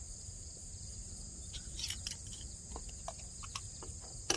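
A steady, high-pitched chorus of insects. Over it come a few soft clicks and pops from lips puffing on a tobacco pipe stem, with a sharper click near the end.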